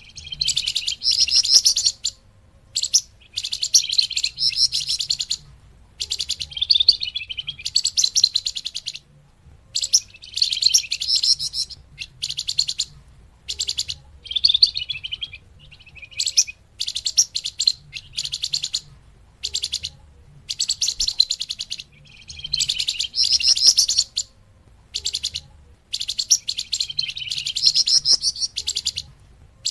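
Flamboyan bird singing: phrases of rapid, high twittering, each lasting one to two seconds, repeated over and over with short pauses between them.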